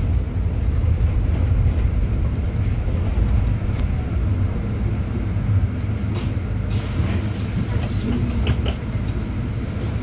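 City bus in motion, heard from inside: a steady low engine and road rumble, with short rattles and clicks from about six seconds in.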